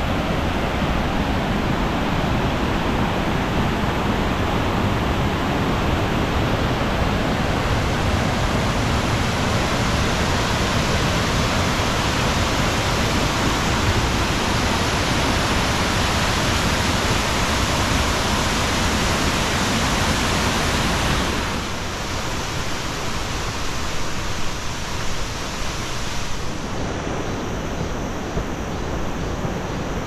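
Mountain stream rushing over boulders and rapids: a steady, dense rush of water. It turns quieter and thinner about two-thirds of the way through.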